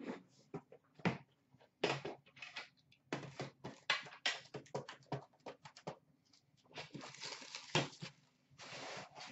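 A metal Upper Deck hockey card tin being handled and its lid worked: a run of sharp clicks, knocks and taps, with a couple of longer rustling stretches in the second half.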